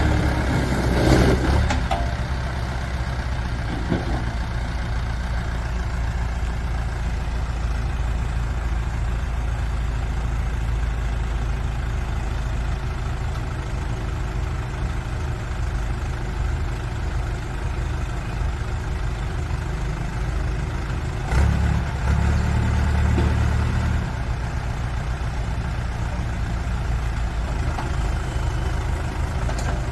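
JCB 2CX backhoe loader's diesel engine idling steadily. It grows louder for about three seconds around twenty seconds in, then settles back to idle. A couple of short knocks come near the start.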